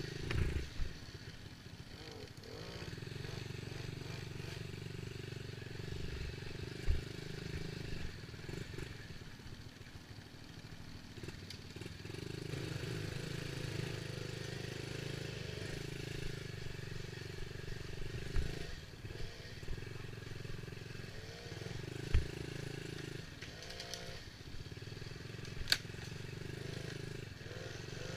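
Dirt bike engine running, its pitch shifting as the throttle opens and closes, with a few short sharp knocks.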